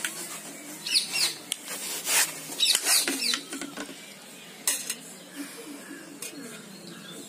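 Kitchen knife cutting through muskmelons, with sharp clicks and knocks of the blade and fruit against the plates several times.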